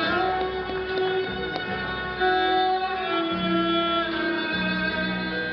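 Violin playing a slow melody of long held notes, with a low steady accompaniment underneath.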